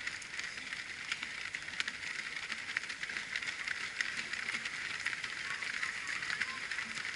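Many runners' footsteps on an asphalt road, a quick irregular patter of shoe slaps over a steady high hiss.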